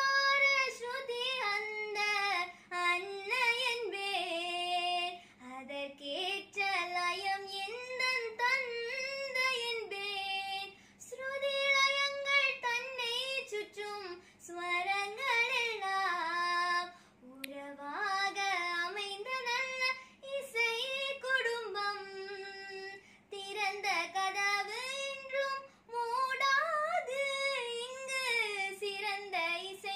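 A girl singing a Tamil song solo and unaccompanied, in phrases with short pauses for breath and wavering ornaments on held notes.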